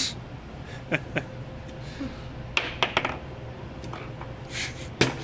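Foosball game in play: sharp, irregular clicks and knocks of the hard ball being struck by the players on the rods and rattling around the table, two about a second in, a quick cluster midway and another sharp pair near the end.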